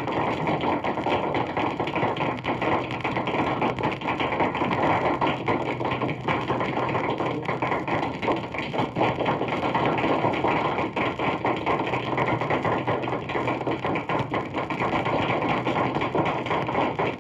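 Crowd applause played from a 78 rpm sound-effects record: a dense, steady clatter of many hands clapping that holds an even level throughout.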